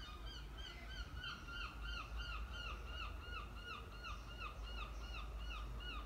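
A bird calling over and over, a quick run of short down-slurred notes, about three a second.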